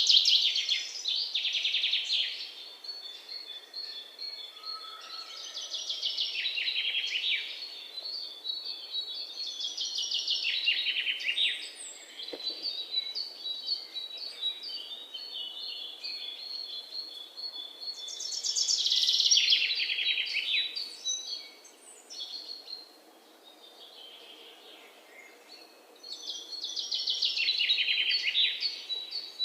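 Small songbirds singing: loud bursts of rapid, falling chirping trills recur every few seconds, with thinner, quieter high notes in the gaps between them.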